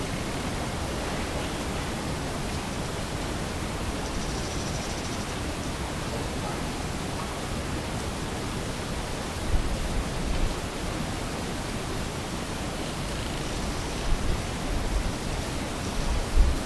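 Steady hiss from an outdoor night recording, with faint low rumbling bumps about ten seconds in and again near the end.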